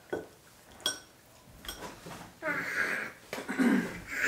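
A metal fork clinks against a glass bowl of spaghetti three times, the loudest about a second in, with a short ringing tone. In the second half a toddler vocalizes with a high, breathy voice.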